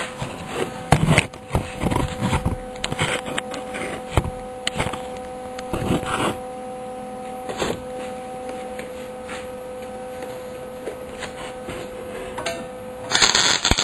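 Clunks and clatter of metal parts and tools being handled on a workbench over a steady electrical hum. Near the end a Lincoln MIG welder's arc strikes and crackles with a dense hiss, the start of a short weld.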